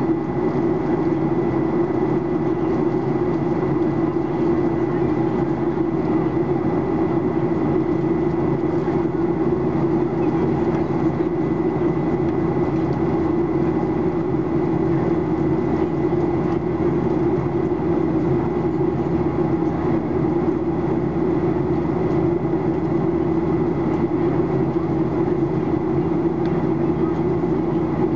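Steady in-flight cabin drone of a Boeing 737-800, heard inside the cabin at a window seat over the wing: CFM56-7B turbofan engine and airflow noise, with a thin steady whine above the rumble.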